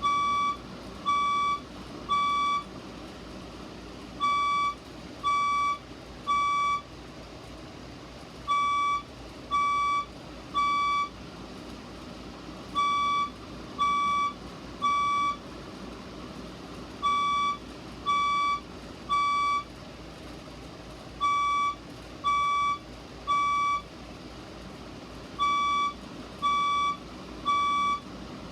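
Fire alarm speaker sounding its evacuation beep tone in the temporal-three pattern: three half-second beeps about a second apart, then a short pause, the group repeating about every four seconds.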